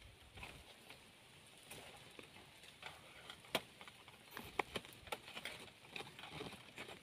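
Faint clicks and rattles of a wire-mesh trap being handled, the mesh knocking and scraping under the hands, with two sharper clicks in the middle.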